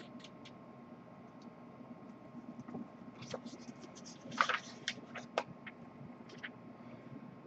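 Paper pages of a booklet being handled and turned: soft rustles and crackles, a scatter of them after about three seconds, loudest about four and a half seconds in.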